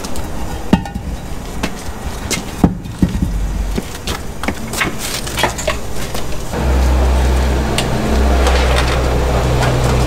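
Sharp knocks and clatters of a cut concrete slab and a steel hand truck being handled and loaded. About six and a half seconds in, a steady low rumble sets in and carries on.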